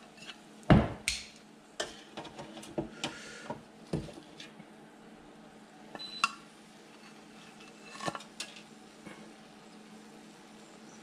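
Metal kitchen tongs knocking and clinking against an air-fryer basket and a ceramic plate as a rack of pork ribs is lifted out and set down. The sharp knocks come thick for the first few seconds, the loudest about a second in, then a few scattered clinks.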